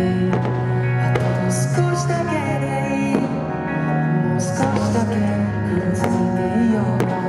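Music from an anime-song fireworks show: a melodic piece with sustained chords and held notes.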